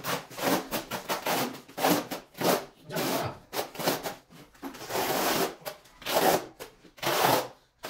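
Notched steel trowel scraping tile adhesive across a concrete floor and combing it into ridges, in a quick, uneven series of rough scraping strokes.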